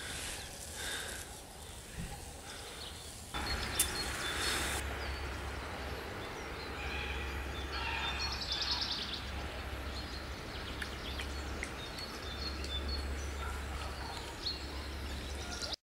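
Outdoor streamside ambience: a steady low rumble with scattered short bird chirps. The rumble steps up about three seconds in, and everything cuts off just before the end.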